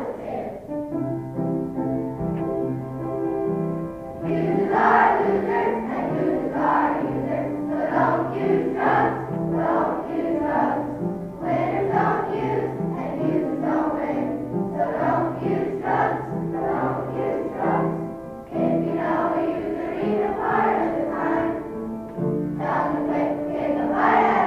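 Children's choir singing a song with instrumental accompaniment. The accompaniment plays alone for a few seconds at the start, and the voices come in about four seconds in.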